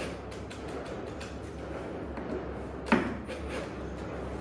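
Office chair parts being handled and fitted together by hand: scattered light clicks and rattles, with one sharp knock about three seconds in.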